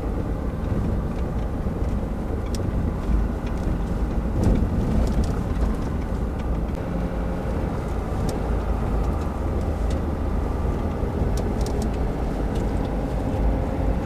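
Pickup truck driving on a snow-covered dirt road, heard from inside the cab: a steady low rumble of engine and tyres, with scattered faint clicks and rattles.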